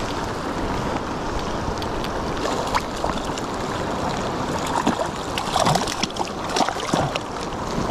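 Mountain river rushing steadily in the rain, with a hooked trout splashing at the surface a few times in the second half.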